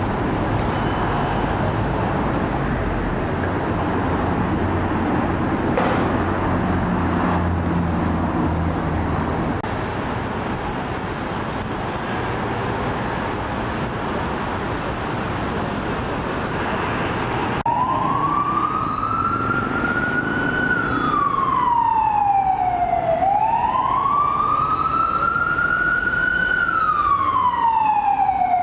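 City street traffic noise with a vehicle engine humming, then, after an abrupt change about two-thirds of the way in, an emergency vehicle's siren wailing slowly up and down, about two full rise-and-fall cycles, louder than the traffic.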